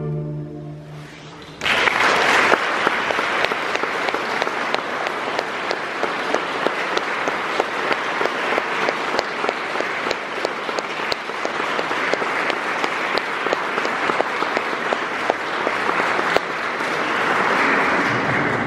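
The last chord of a chamber orchestra dies away in the chapel's echo, and about a second and a half in the audience breaks into steady applause that carries on to the end.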